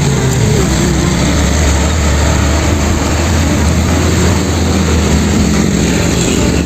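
Concrete mixer truck running: a steady low engine hum under loud, dense mechanical noise.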